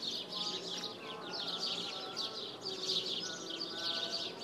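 Insects chirring in quick, repeated strokes, with birds whistling held notes that step from pitch to pitch.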